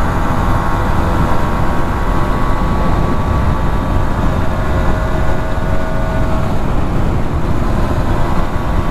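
Suzuki RGV250 VJ22's two-stroke V-twin, on Arrow exhausts, running at a steady cruise under way, with wind rushing over the microphone.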